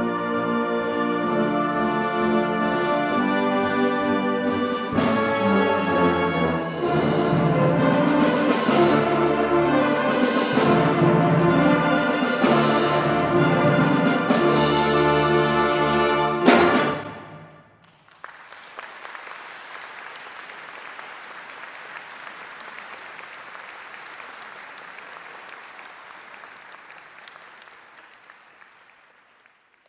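A wind band of brass, saxophones, clarinets and percussion plays the closing bars. About sixteen seconds in it ends on a loud accented chord that rings off. The audience then applauds, and the applause fades away near the end.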